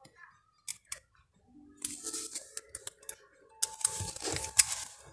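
Small metal tools clicking and scraping on a phone circuit board while desoldering a SIM card socket: two sharp clicks about a second in, then two longer stretches of scraping, with faint steady tones in the background.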